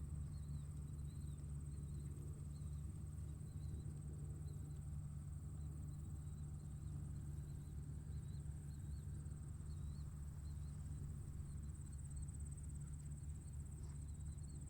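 Tractor engine running steadily at a distance, a low, even rumble. A steady high insect trill, like crickets, sits above it, with scattered short high chirps.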